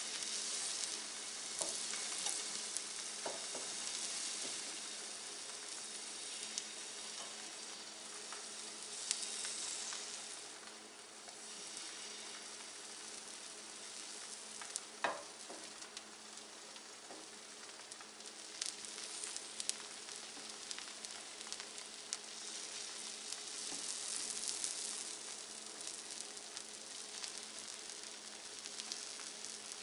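Egg paratha batter frying on a hot iron tawa over a low gas flame: a steady soft sizzle with fine crackling, and a single sharp knock about halfway through.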